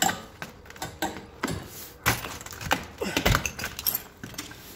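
A person scrambling out through a window over broken boards and rubble: a quick, irregular run of knocks, scrapes and crunches, the heaviest about two and three seconds in.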